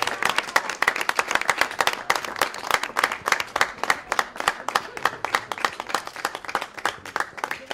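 A small crowd applauding, many hands clapping quickly and densely, then stopping abruptly.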